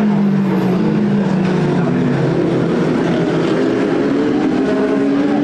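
Several racing car engines running together, their pitch sliding down over the first half and climbing again over the second half.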